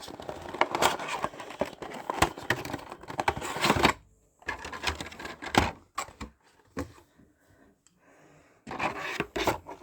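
Cardboard box being opened by hand: scratching, tearing and clicking of the packaging, in several spells with a quiet pause a little after the middle.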